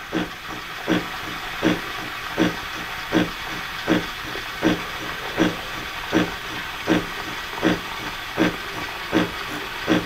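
Breville Nespresso Creatista Plus steam wand frothing milk in a stainless jug: a steady steam hiss with a short regular pulse about every three-quarters of a second. This changed sound marks the stage where the milk is being foamed rather than just warmed.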